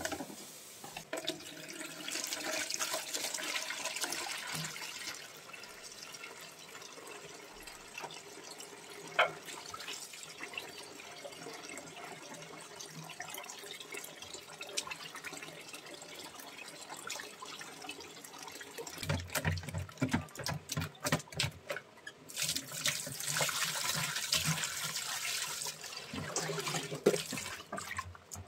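Tap water running into a plastic basin in a stainless steel sink, with hands splashing and rubbing fish in the water. There is louder splashing and a few knocks about two-thirds of the way through.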